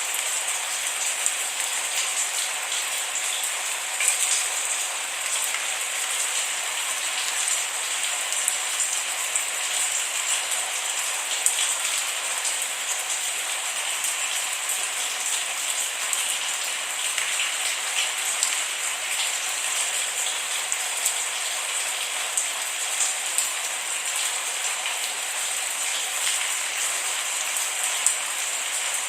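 Steady rain falling, with many small drops pattering on a hard surface and no thunder.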